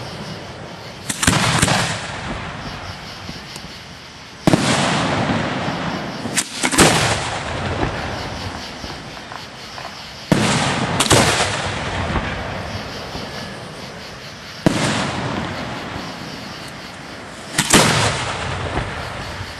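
Display fireworks going off: about ten loud bangs every few seconds, some in quick pairs, each trailing off in a long rolling echo.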